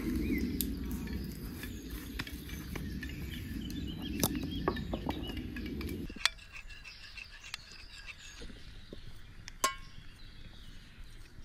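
A low steady rumble with faint birdsong above it, stopping abruptly about six seconds in. Then a metal spoon clinks a few times against a round metal baking pan of klepe, the loudest clink with a short metallic ring.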